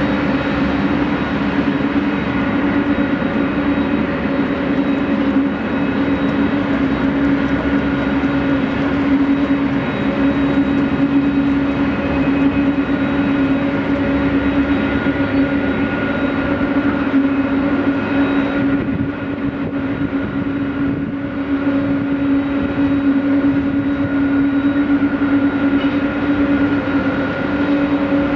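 Boeing 777-200's Pratt & Whitney PW4000-series turbofans at low taxi power: a steady jet whine with a low hum as the airliner rolls past. The higher hiss eases briefly about two-thirds of the way through.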